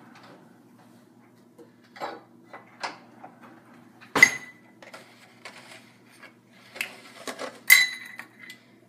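Kitchen utensils handled in a drawer and on a counter: scattered knocks and rattles, then two sharp metallic clinks that ring briefly, one about four seconds in and one near the end, as a small metal measuring cup is taken out and set down.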